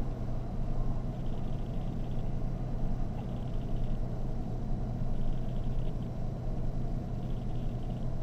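Steady low rumble with a constant hum, as of an idling vehicle, with a few faint, broken bursts of a weak two-way radio transmission that is too garbled to make out.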